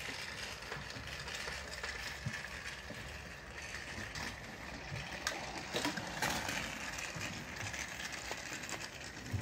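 Battery-powered Thomas the Tank Engine toy train running on plastic track, its small motor and gears whirring steadily. A few sharp clicks come between about five and six and a half seconds in.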